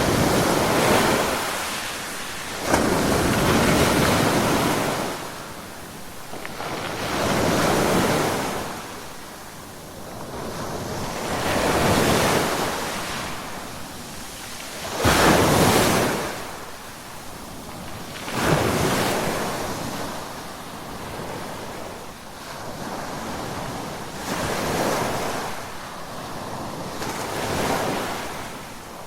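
Ocean waves breaking on the shore, surging up and fading back about every four seconds. Some waves break suddenly, about 3, 15 and 18 seconds in.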